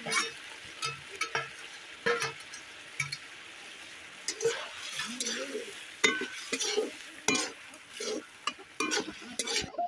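Flat metal spatula scraping and knocking against a steel kadai in irregular strokes as cauliflower is stirred into a curry, over a steady sizzle from the pan.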